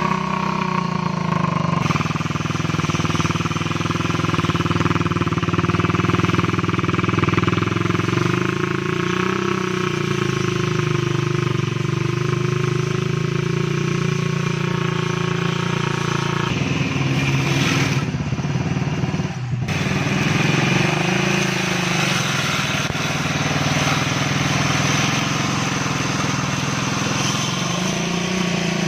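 Small engine of a homemade two-blade grass cutter running steadily, its pitch shifting and briefly dipping about two-thirds of the way through.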